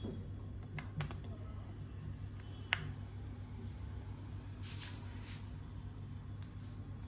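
Small objects being handled during an unboxing: a few light clicks and taps, the sharpest about three seconds in, and a brief rustle about five seconds in, over a steady low hum.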